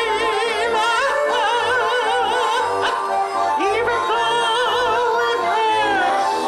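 A woman singing with a wide vibrato, amplified through a stage PA, accompanied by a piano accordion's held chords over a low pulsing beat.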